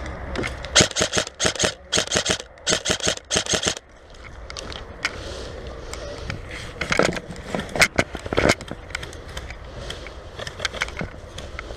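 Airsoft guns firing in quick bursts of sharp clicking shots for the first few seconds, then scattered single shots.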